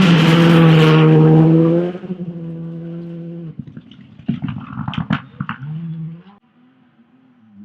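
Classic rally car engine held at high revs at full throttle as the car passes close. After about two seconds it lifts off, with a run of sharp cracks and pops a couple of seconds later, then the engine note drops away to a faint hum as the car goes off into the distance.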